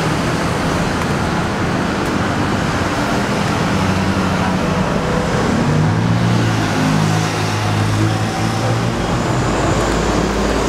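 Steady road traffic noise, with a vehicle engine passing about six to nine seconds in.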